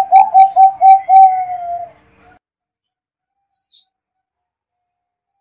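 Zebra dove (perkutut) cooing: a quick run of short, clipped notes, about four a second, closing with a longer falling note about two seconds in.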